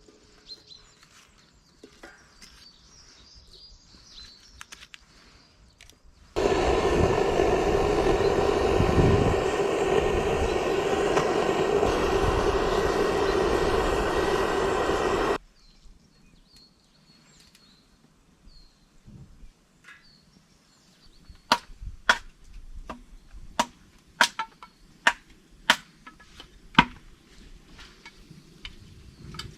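A loud, steady mechanical noise that cuts in abruptly about six seconds in and stops just as abruptly some nine seconds later. Near the end comes a run of sharp, wood-like knocks, about one or two a second.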